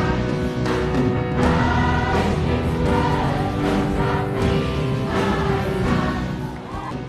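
A large ensemble of young voices singing together in a stage musical, with instrumental accompaniment.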